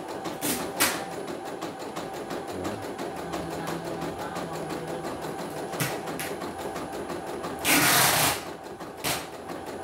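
CNY single-needle computerized embroidery machine stitching a test design: the needle runs in a fast, even patter as the hoop moves. A few sharp clicks come through it, and a little before the end there is a short, louder burst of hissing noise.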